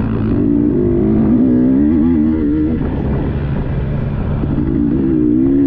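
Dirt bike engine running under changing throttle, its pitch rising and falling again and again.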